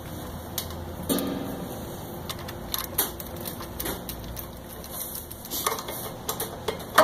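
Hands fitting clear plastic drain tubing onto a stainless press's drain fittings and tightening small worm-drive hose clamps with a hand tool: scattered light clicks, taps and rubbing at irregular intervals.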